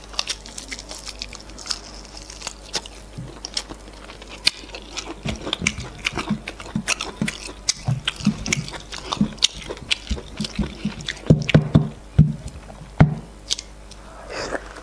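Close-miked eating sounds of a person chewing efo riro stew with meat and semolina fufu: dense, irregular smacking and clicking mouth noises, with a few louder, deeper smacks towards the end.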